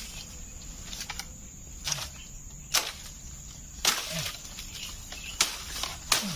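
Machete chopping into dry bamboo and brush: about five sharp, irregularly spaced strikes as the undergrowth at the base of a bamboo clump is hacked clear.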